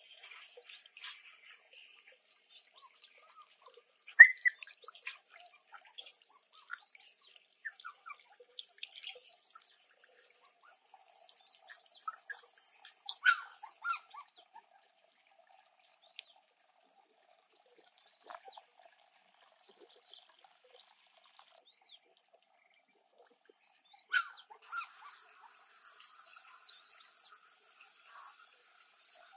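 Outdoor garden ambience: birds chirping over a steady high-pitched whine and a faint trickle of water. Three sharp, louder sounds stand out, about four, thirteen and twenty-four seconds in.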